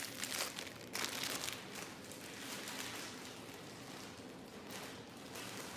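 Crinkling and rustling as Velcro hair rollers are picked out of their box, busiest in the first second or so, then fading to a faint hiss.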